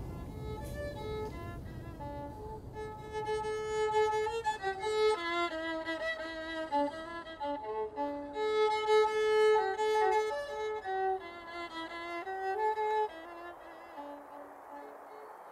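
Solo violin playing a slow melody of held, bowed notes, one note at a time. It stops near the end.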